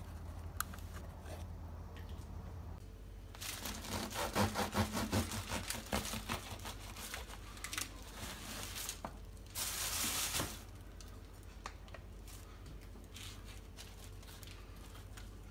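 Serrated bread knife sawing through a crusty loaf on a wooden board, the crust crackling with each rapid stroke for several seconds. A brief burst of rustling follows, then faint scrapes of a knife spreading butter on the bread.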